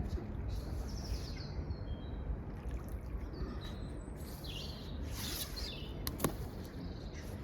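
Birds chirping in short phrases over a steady low outdoor rumble, with one sharp click near the end.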